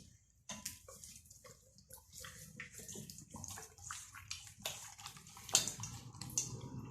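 Hands rubbing seasoning into a raw whole chicken: irregular wet squishing and small sticky smacks of the skin.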